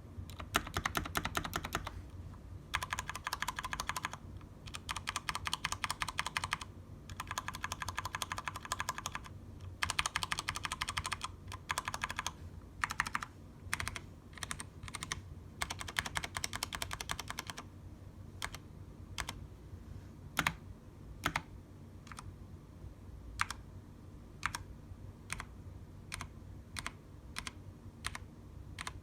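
Corsair mechanical keyboard fitted with white PBT keycaps being typed on: several bursts of rapid typing, then slower single key presses, roughly one a second, for the last ten seconds or so.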